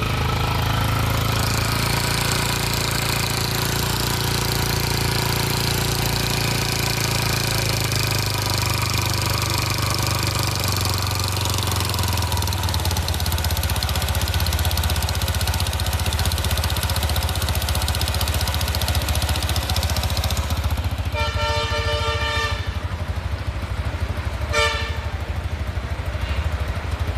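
Yamaha Exciter 135 motorcycle's single-cylinder four-stroke engine running steadily with no revving, the sound its owner is showing. Near the end a pulsing tone sounds for about two seconds, then a short tone follows.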